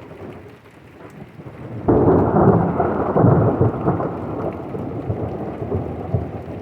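Steady rain, then about two seconds in a thunderclap breaks suddenly and rolls on as a long rumble that slowly fades.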